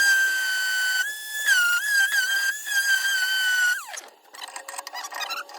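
Electric power sander's motor whining at a high, steady pitch that wavers briefly, then winding down with a falling pitch about four seconds in. A fainter, lower hum follows.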